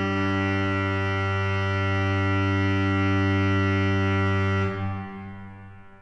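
Church organ holding a full chord with a strong bass, released about five seconds in, the sound then dying away in the church's reverberation.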